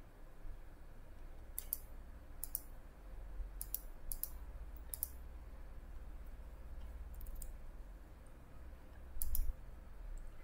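Computer mouse clicks: about seven short, sharp single clicks at uneven intervals, over a faint low hum.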